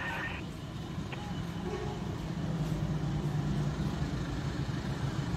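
Diesel-electric locomotive approaching at a distance, its engine a steady low rumble that grows gradually louder. A high ringing tone cuts off about half a second in.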